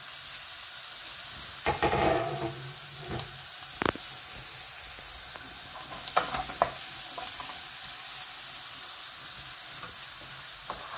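Chopped green beans and onion sizzling steadily in a non-stick wok while being stirred with a wooden spatula, which knocks and scrapes against the pan a few times.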